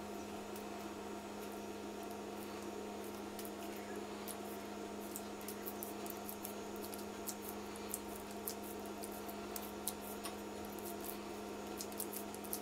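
Faint soft clicks and squishes of hands pressing and patting a stuffed ball of corn masa closed, coming more often in the second half, over a steady low hum.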